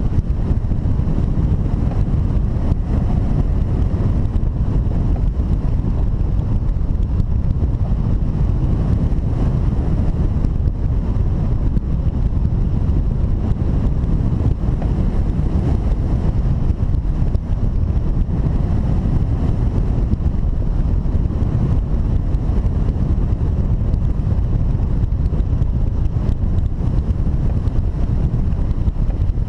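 Wind from the hang glider's flight rushing over the camera's microphone: a steady, loud, low wind noise that does not let up.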